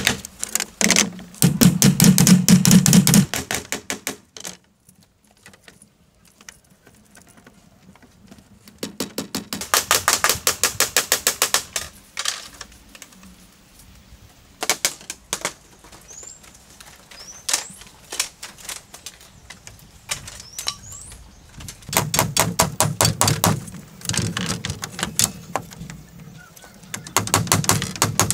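Bursts of rapid, sharp knocks from a hand tool striking bamboo, each lasting a few seconds with quieter gaps between. A bird chirps a few times in the quiet stretch midway.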